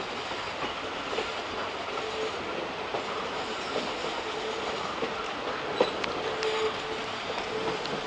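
Passenger train running, heard from an open coach door: a steady rush of wheels on rail, with a squeal from the wheels coming and going as the coaches round a curve, and a single sharp click about six seconds in.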